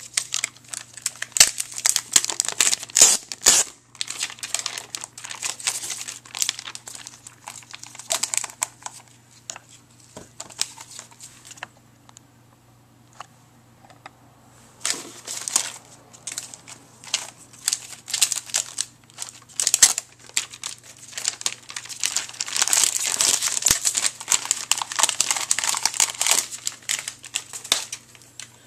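Clear plastic protective film being peeled and crinkled off a router's plastic casing, in long stretches of crackly rustling with a quiet pause about halfway through.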